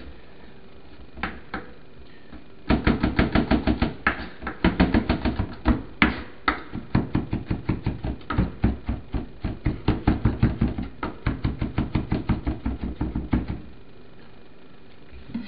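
Kitchen knife chopping garlic on a bamboo cutting board: a couple of single knocks, then from about three seconds in a long run of quick, even chopping knocks that stops shortly before the end.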